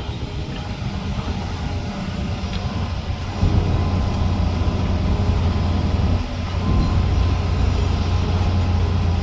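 Diesel engine of heavy earthmoving machinery running with a steady low drone, working harder and louder about three and a half seconds in, with a brief dip a little after six seconds.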